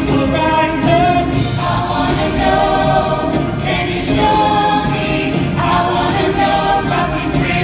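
A choir singing sustained notes over musical accompaniment, with voices carried on microphones.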